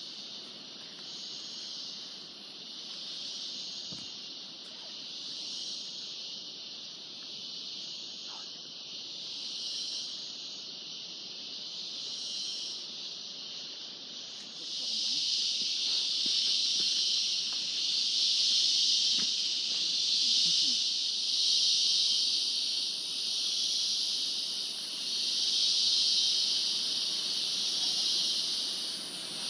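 Rainforest insect chorus: a steady, high-pitched hiss that swells and fades in slow waves and grows louder about halfway through.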